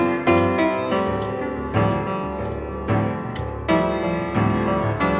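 Background piano music, with notes and chords struck about once a second and ringing on between them.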